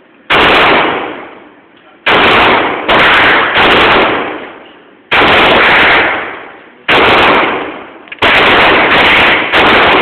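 Glock 23 pistol in .40 S&W firing nine shots at an uneven pace, some close together and some a second or more apart. Each is a sharp bang followed by a long echo off the walls of an indoor shooting range.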